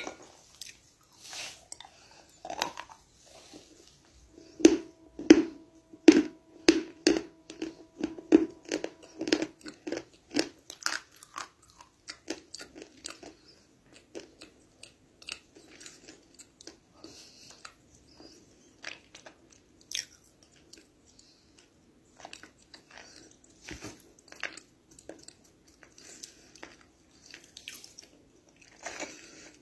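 A person biting and chewing dry edible clay (Turkestan clay tiles) close to the microphone: crisp, crunching bites, loudest and densest a few seconds in, then quieter, sparser chewing.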